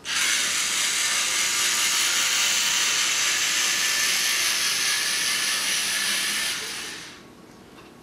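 Two LEGO Mindstorms NXT servo motors driving a small robot's wheels at power 50: a steady gear whir that starts abruptly and dies away at about seven seconds as the motors stop.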